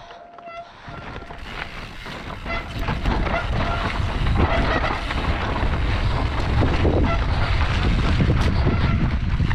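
Mountain bike descending a rough trail: wind buffeting the microphone over the rumble and rattle of tyres and frame on rocks and dirt. It grows louder over the first few seconds as speed builds, then stays loud.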